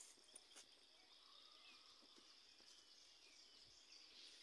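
Near silence: faint steady insect chirring with a few faint bird calls.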